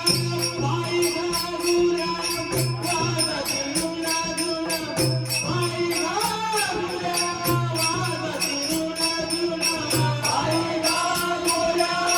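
A bhajan group playing a devotional song. Small hand cymbals clink at a steady beat of about four strokes a second over a drum, with a held reed-like drone and a melody line that rises and falls.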